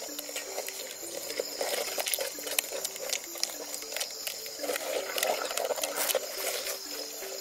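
A wooden stirring stick scraping and knocking against an aluminium saucepan as a thick sauce is stirred, in irregular clicks and scrapes. Behind it, background music plays a slow plucked melody, and insects chirp steadily at a high pitch.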